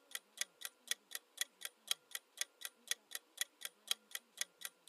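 Countdown-timer ticking sound effect: an even clock tick, about four ticks a second.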